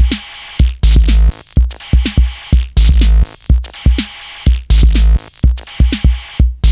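Electronic backing music with a driving drum-machine beat and heavy bass-drum kicks, briefly cutting out near the end.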